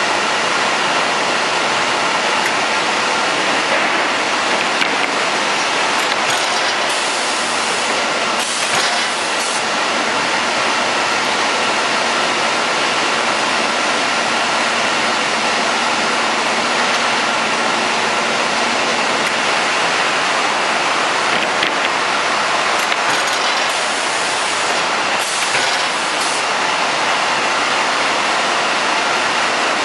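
Industrial panel sanding machine running with a steady, loud noise, a few faint steady tones running through it.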